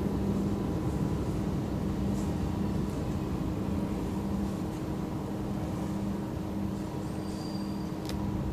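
Steady low rumble and hum of a metro train running in the tunnel, slowly easing off, with a few faint high squeals near the end.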